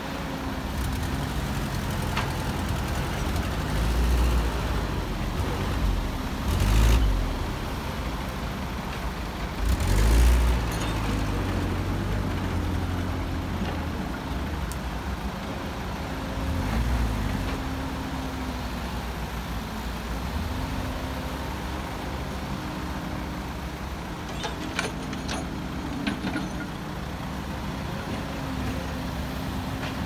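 Heavy diesel engines of an excavator and dump truck running steadily while the excavator loads soil into the truck bed. Several louder heavy rumbles come and go, the loudest about seven and ten seconds in, and a few light sharp knocks come near the end.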